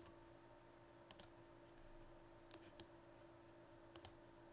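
Faint computer mouse clicks: a quick double-click about a second in, two single clicks a little later, and another double-click near the end, over a low steady hum.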